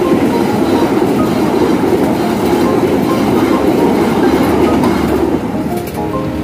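Passenger train coaches rolling past at close range over a level crossing, wheels running on the rails. The noise eases about five seconds in as the last coach clears the crossing.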